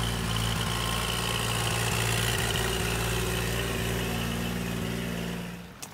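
Tractor engine idling steadily, fading away near the end.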